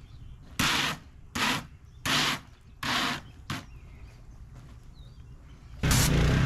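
Pressure washer wand fired in five short bursts of spray, then held open near the end for a loud, steady spray over the low hum of the machine.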